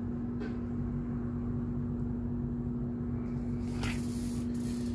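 Steady machine hum of a running room appliance, a constant low tone over a low rumble. Brief rustles from a framed poster being handled, the clearest about four seconds in.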